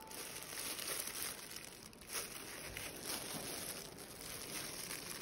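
Soft, irregular crinkling and rustling of a disposable plastic glove handling amaryllis bulbs with dry papery skins and roots.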